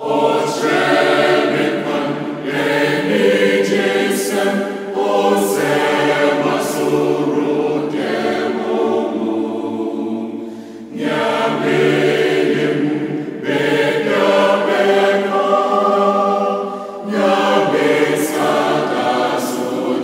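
A choir singing an opening theme in held chords, phrase after phrase, with short breaks between the phrases and a longer dip about halfway through.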